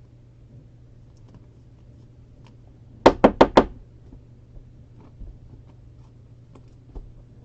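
Four quick, loud knocks in a row a little over three seconds in, with a few faint clicks of card handling around them.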